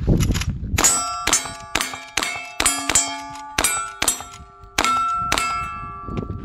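A lever-action rifle fired rapidly about ten times, each shot followed by the clang of a steel plate target being hit. The plates' ringing tones carry over one another and fade after the last shot.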